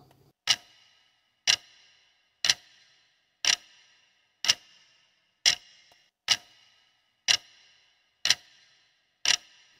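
Clock-tick sound effect for a quiz countdown timer: ten sharp ticks, one a second, each with a short bright ring.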